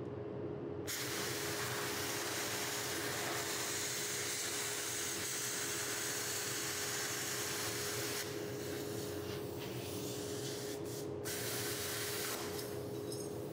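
BestArc BTC500XP blowback-start plasma cutter cutting steel plate: a steady hiss of the air jet and arc that starts about a second in. It thins a little past the middle and cuts out for a split second twice late on.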